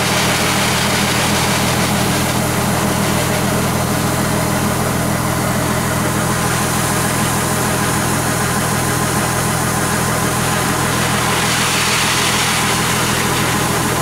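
Kubota DC-70G combine harvester's diesel engine running at a steady speed while its unloading auger drives threshed rice grain out of the discharge spout into a sack, with a steady hiss over the engine's low hum.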